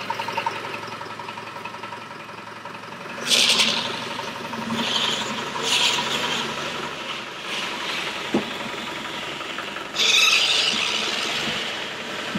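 1993 Range Rover Classic's turbodiesel engine idling with a tractor-like diesel sound as the truck creeps forward and turns. Several short squeals come as it moves, loudest about three seconds in and again about ten seconds in, with a single click a little after eight seconds.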